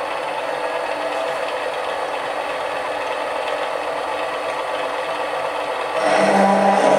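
Mini lathe running with a 15 mm twist drill in the tailstock at the face of a spinning cast iron bar. About six seconds in the sound gets suddenly louder with new steady tones as the drill starts cutting into the cast iron.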